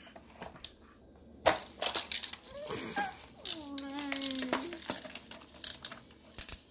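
Baby vocalizing: a drawn-out 'aah' about two seconds long, sliding and then holding one pitch, among scattered clicks and taps as his hands work a plastic toy steering wheel.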